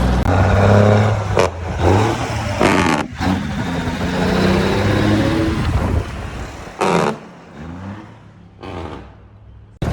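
Kenworth W900A semi's Cummins 855 Big Cam diesel running on the road, revs rising and falling several times with a few short clattering bursts. The sound drops off about seven seconds in.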